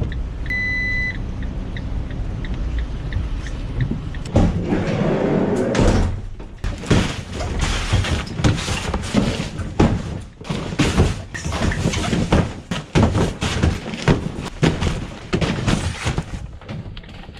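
A single short electronic beep over a low rumble, then from about four seconds in a rush of noise followed by a long run of irregular knocks and thuds.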